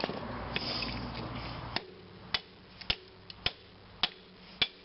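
Hammer blows on a transformer to knock its copper windings loose from the core: a scraping noise through the first second and a half, then a string of sharp strikes, roughly two a second.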